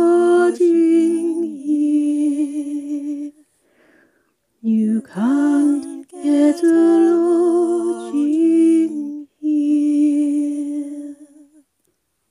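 Multi-tracked female a cappella voices singing a traditional English song in two-part harmony, in long held notes. There is a short pause about four seconds in, and the last held chord dies away shortly before the end.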